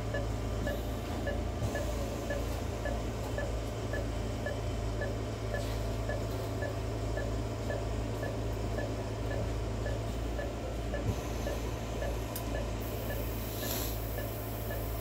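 Veterinary anaesthesia monitor beeping steadily with the anaesthetised dog's pulse, nearly three beeps a second, over a constant low hum of equipment.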